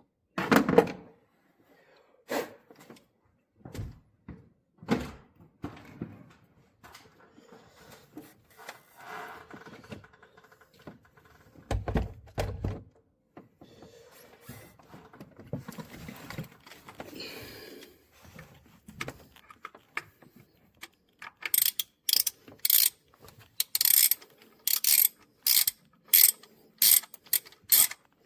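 Scattered clunks and knocks of tools and metal parts being handled, then, for the last several seconds, a hand ratchet wrench clicking in quick strokes.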